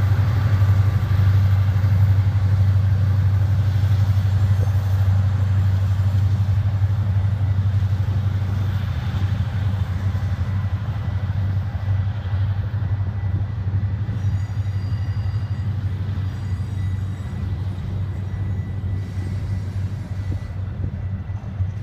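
Union Pacific diesel freight locomotives passing with a steady, heavy low drone. The drone slowly fades as the locomotives move on and the freight cars roll by.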